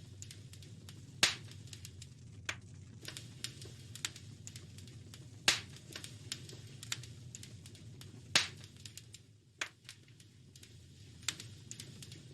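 Wood fire crackling in a fireplace: a steady stream of small crackles with three loud pops, about a second in, midway and past two-thirds of the way, over a low steady rumble.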